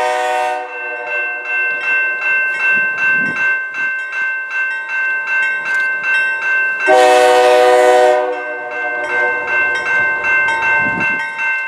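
Air horn of a GE Dash 9 freight locomotive sounding a chord of several notes: one blast ending about a second in, then a louder long blast about seven seconds in. A bell rings with rapid, even strokes throughout.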